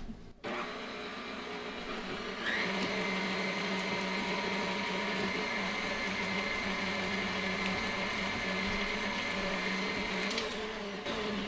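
KitchenAid Heavy Duty stand mixer running, its flat beater mixing a wet dough in a stainless steel bowl: a steady motor whine. It steps up louder and higher about two and a half seconds in, and drops back near the end.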